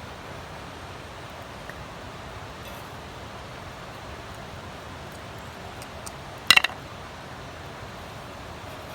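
Steady background hiss with one brief metallic clink, in a quick cluster of a few close strikes, about six and a half seconds in, typical of metal camp cookware being handled.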